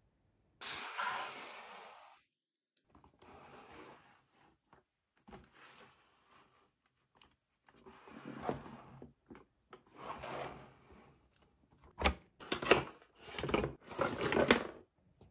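A cardboard toy box being handled and opened: card rubbing and sliding against card, with a few sharp clicks and knocks, loudest near the end as the flap comes open.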